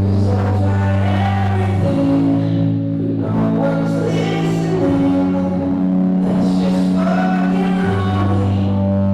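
Music playing: a song with singing over long held bass notes. The bass note changes about two seconds in and again near the end.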